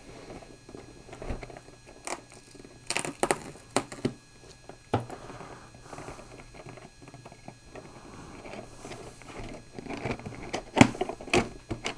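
Fingernails scratching and picking at packing tape on a cardboard box to peel it off, with rustling and sharp clicks from the box being handled, thickest about three seconds in and again near the end.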